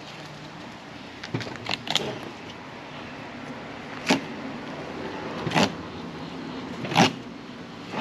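A fillet knife cutting along a blackfin tuna's backbone: a quick cluster of short scraping sounds, then single ones at intervals of a second or two, the loudest about seven seconds in.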